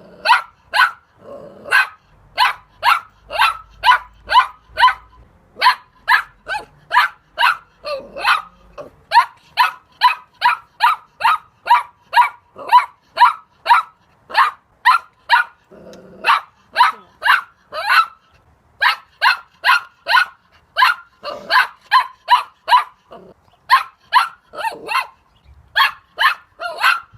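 A puppy barking: a long run of short, high-pitched yaps, about two a second, with a few brief pauses and some lower growly sounds between them.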